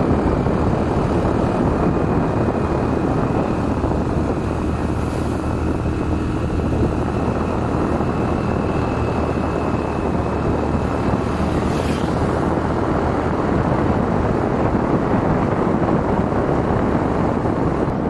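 Steady road noise from a moving vehicle: engine hum and wind rushing over the microphone, with a faint high whine that stops about two-thirds of the way through.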